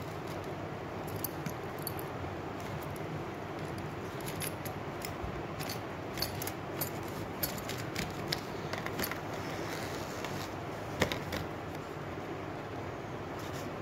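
Small metal scissors clicking and snipping: a string of sharp separate clicks, the sharpest about eleven seconds in, over a steady background hiss.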